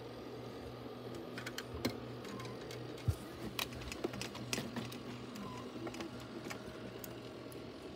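Small motor of a cheap rotating disco light ball running with a steady low hum. Irregular clicks and ticks sound over it, and a faint short squeak comes twice.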